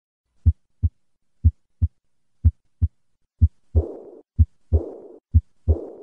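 Heart sounds at about one beat a second. The first three beats are plain lub-dub; from about halfway, each second sound is followed by a high-pitched, fading early diastolic murmur, the classic murmur of aortic regurgitation.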